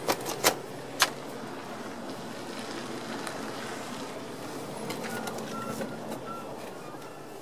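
Three sharp clicks and knocks within the first second as a travel trailer's entry door handle and latch are worked, followed by a steady background hum.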